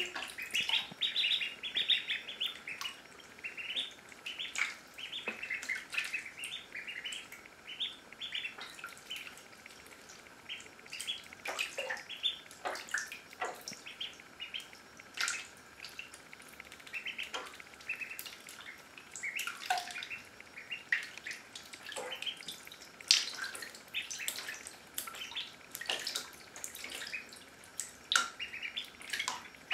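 Indian Runner ducklings peeping over and over in short, high chirps, with small splashes of water as they paddle about in a shallow bathtub.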